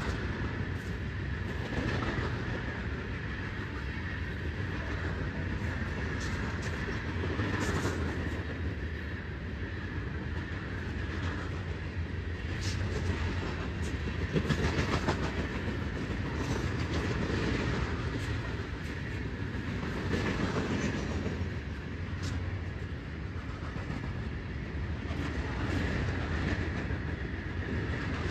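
A long, heavy train rolling past: a steady rumble with irregular clacks of the wheels over the rails.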